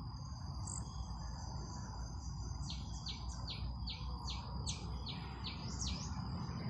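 Bird calling in a rapid series of short falling notes, about three a second, starting a little under three seconds in, over a steady high-pitched insect drone.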